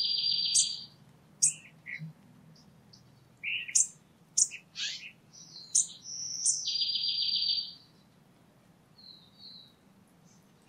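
Several birds calling: a rapid, buzzy trill lasting about a second, once at the start and again about two-thirds of the way through, with short high chirps scattered between.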